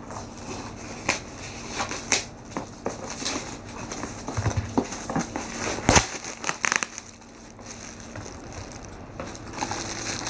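Scissors snipping and packing tape crackling as a taped parcel is cut open, with irregular crinkling of plastic wrapping. A louder knock comes about six seconds in as the box is handled.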